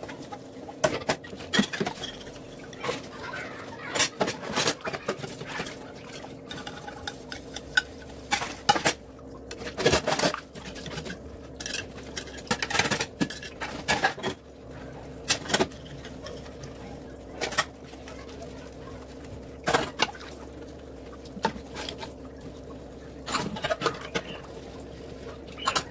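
Dishes being washed: pots, pans and cutlery clinking and clattering against each other at irregular intervals, over a steady low hum.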